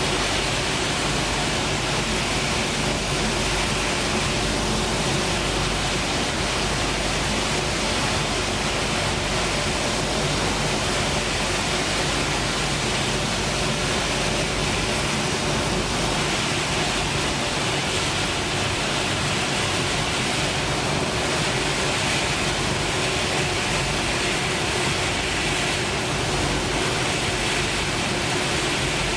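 Pet-food extrusion production line running: a steady, even noise of motors, fans and blowers, with a faint steady hum in it.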